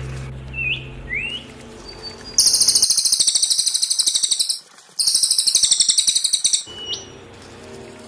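Small songbird singing: a few short rising whistles, then two loud, rapid, high-pitched trills of about two seconds each, broken by a brief gap, and a rising whistle near the end.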